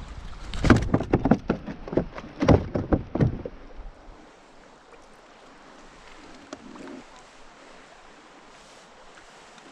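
A quick, irregular run of knocks and clatters in a boat for about three seconds, then only faint wind and water hiss.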